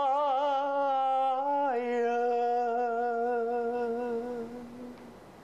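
A man singing unaccompanied, holding the words "ai ren" (愛人, "beloved") on two long notes. The first note wavers with vibrato; under two seconds in he steps down to a lower note, holds it steadily and lets it fade out near the end.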